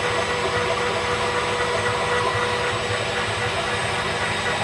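Metal lathe running steadily with aluminium stock spinning in the chuck, not yet cutting: an even motor hum with a few steady whining tones.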